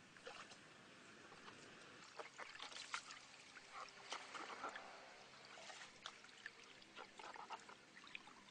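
Faint, irregular splashing and trickling of stream water as a long pole is pushed into the shallow water to move a raft along.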